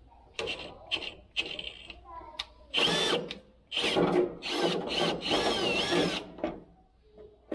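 Milwaukee Fuel cordless drill running a step drill bit on an extension into a combine's sheet-metal panel. It runs in short bursts at first, then in two longer runs whose whine rises and falls in pitch.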